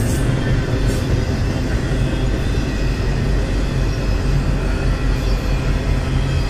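CSX intermodal freight train rolling past: a steady rumble of steel wheels on rail as double-stack container cars and trailer-carrying flatcars go by.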